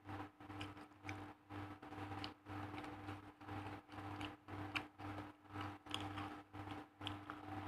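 Chewing of raw leaves and rice, an even rhythm of about two chews a second with faint crisp crunches.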